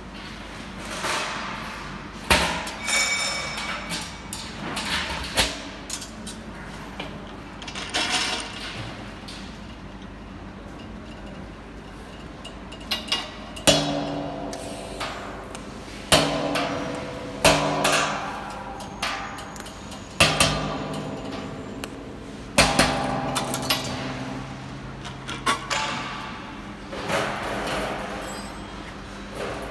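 Stainless steel inner tank and its domed cap being struck repeatedly with a hand tool, over a dozen irregular sharp metal knocks. Many blows leave the thin steel shell ringing with clear tones, and they come more often and ring longer in the second half.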